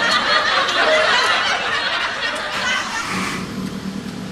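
A man chuckling breathily through his food. It dies away a little after three seconds in, leaving a faint low steady hum.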